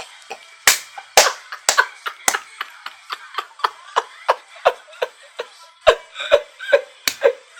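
A rhythmic run of sharp, slap-like hits, about two a second, each with a short falling tone after it.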